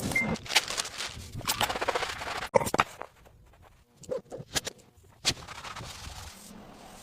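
Irregular sharp clicks and knocks with quiet gaps between them, the loudest about two and a half seconds in and another just after five seconds.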